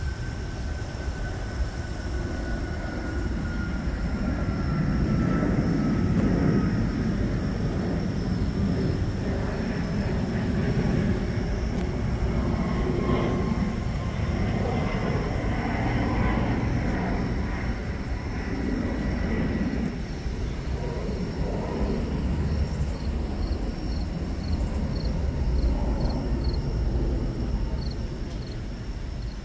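A jet aircraft passing overhead: a low rumble that swells and fades, with a thin engine whine slowly falling in pitch.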